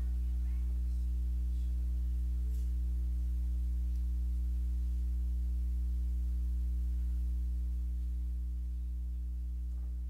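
Steady low electrical hum with a few fainter overtones above it, easing slightly in level near the end; a few faint ticks in the first few seconds.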